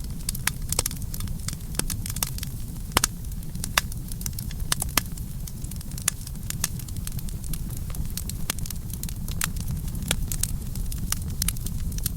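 Campfire burning, with a steady low rumble and irregular sharp crackles and pops of the burning wood.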